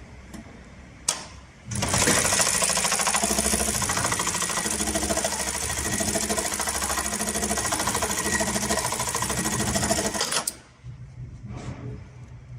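Electronic industrial bartack sewing machine (HighTex 430HM, servo-driven) sewing a bartack at high speed, a fast run of stitches lasting about nine seconds that starts about two seconds in and cuts off suddenly. A single click comes shortly before it starts.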